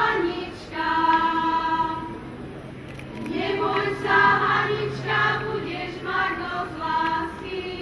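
Slovak folk singing group of women and girls singing unaccompanied in unison and harmony: long held notes in phrases, with short breaks between them.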